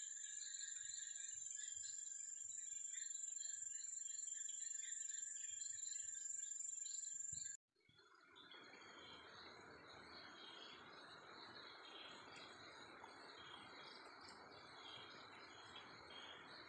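Faint night chorus of crickets and other insects: a steady high trill with pulsing chirps that cuts off suddenly about halfway through, then after a moment of silence comes back as a fuller, hissier chorus.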